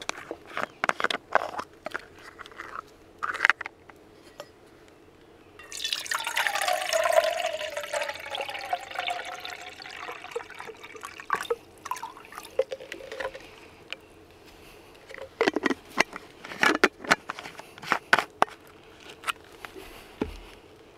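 Liquid poured for about four seconds, with a tone in the pour that slowly falls, between bursts of small clicks and knocks from handling gear.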